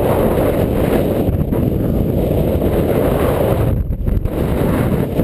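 Wind buffeting a GoPro camera's microphone: a loud, steady low rumble that eases briefly about four seconds in.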